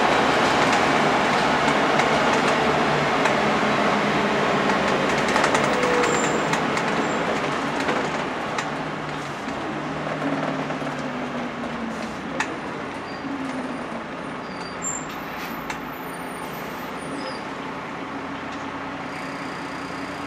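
Volvo B10BLE single-deck bus heard from inside the saloon: its rear-mounted six-cylinder diesel engine and road noise run loud at first, then die away as the bus slows, the engine note falling, and it settles to a quieter idle at a stop. A single sharp click about twelve seconds in.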